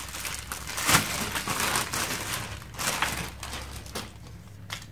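Clear plastic packaging bag crinkling and rustling as a vacuum part is unwrapped from it, loudest about a second in and again near three seconds, then settling into a few faint clicks.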